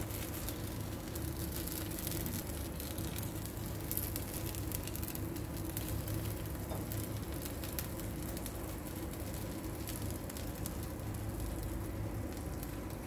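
Pizza dough cooking in a frying pan on a gas stove: a steady low hiss with a faint sizzle, and light ticks as toppings are dropped onto it.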